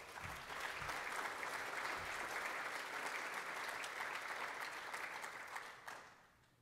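Audience applauding. The clapping builds over the first second, holds steady, and dies away about six seconds in.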